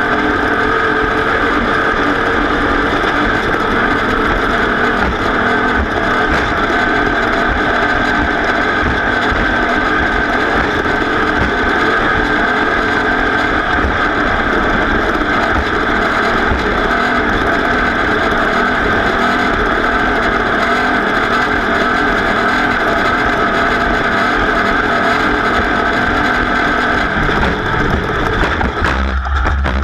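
Off-road race vehicle's engine running hard at steady speed, a continuous loud drone over rough low-end noise. The sound changes abruptly about a second before the end.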